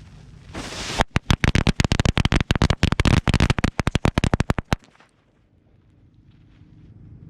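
A strip of Black Cat limited edition color firecrackers: the fuse hisses briefly, then the crackers go off in a rapid, uneven string of pops for nearly four seconds and stop suddenly. The reports are not very loud for firecrackers.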